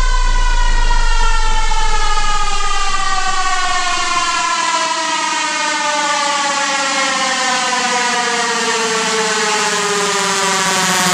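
Electronic dance music: a single sustained synth tone rich in overtones glides slowly and steadily downward in pitch, a siren-like downsweep. A deep bass underneath fades out about a third of the way in.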